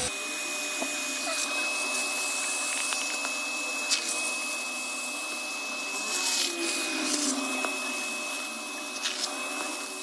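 Household vacuum cleaner, filter removed, running steadily with a high motor whine as its plastic nozzle is drawn over a soaked fabric car seat, sucking out the dirty rinse water. A couple of brief clicks from the nozzle on the seat.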